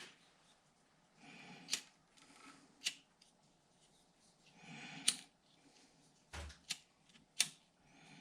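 Hands handling a small tool and its wiring: brief rustling and about five sharp, separate clicks.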